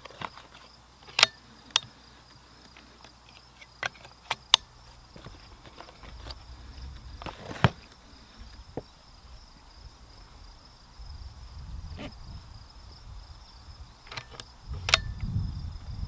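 Scattered sharp clicks and light knocks from a cardboard cartridge box and rounds being handled on a wooden shooting bench, over a steady high chirring of crickets. A low rumble builds near the end.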